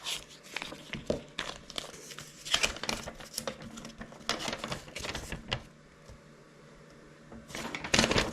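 Paper and plastic packaging rustling and crinkling in the hands, with scattered small clicks and knocks of handling. It goes quiet for about two seconds near the end, then a loud rustle follows.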